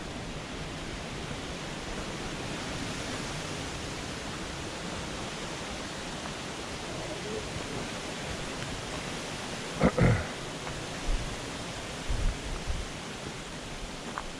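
Steady rushing of a brook's flowing water. About ten seconds in, a sharp knock close to the microphone, followed by a few lower thumps over the next three seconds.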